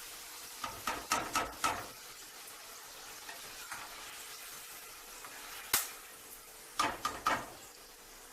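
Hot oil sizzling softly in a kadhai while a spoon scrapes and clinks against the pan, lifting out fried okra. There is a cluster of knocks about a second in, one sharp clink in the middle, and a few more near the end.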